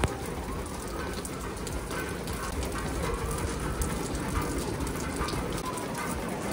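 Steady rain falling, an even patter throughout.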